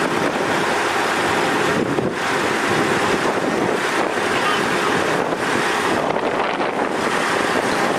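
Steady rushing noise of wind buffeting the microphone, even throughout with no distinct event standing out.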